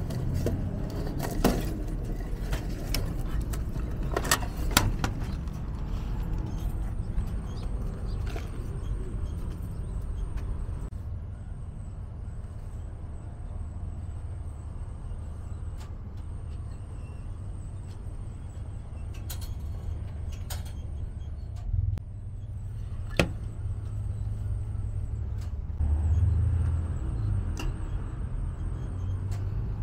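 Scattered clicks and knocks of a paper instant-noodle cup being handled at a vending machine's delivery slot and hot-water compartment, over a steady low rumble that swells briefly near the end. A faint, thin high whine sets in about seven seconds in.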